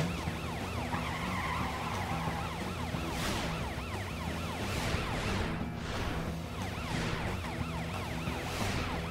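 Police car siren going rapidly up and down over background music, with several whooshes of cars speeding past.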